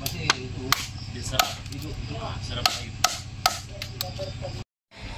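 Machete chopping through a raw chicken carcass on a plastic cutting board: a series of sharp, irregularly spaced chops, about eight of them. They stop abruptly shortly before the end.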